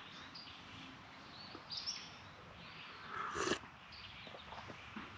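A short slurp as hot coffee is sipped from an enamel mug, about three and a half seconds in, over faint birds chirping in the background.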